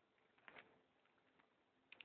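Near silence: room tone with a faint soft rustle about half a second in and a faint click at the end.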